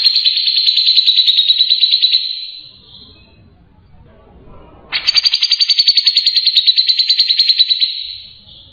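Long-tailed shrike (cendet) singing: two long, high, rapid trills, each lasting about three seconds, the first fading out about two and a half seconds in and the second starting about five seconds in.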